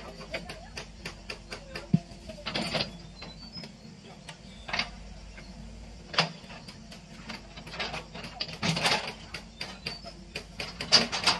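Hitachi EX120 diesel excavator clearing brush: a faint steady engine hum under a string of sharp clicks and cracks from vegetation and wood breaking against the bucket, with a louder crash every couple of seconds.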